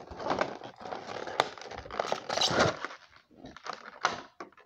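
Cardboard and plastic packaging being handled and opened by hand: irregular rustling with sharp clicks, a distinct click a little over a second in and a louder stretch of rustling around two and a half seconds.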